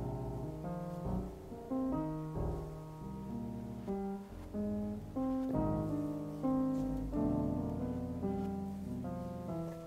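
Background piano music: a series of single notes over held low notes.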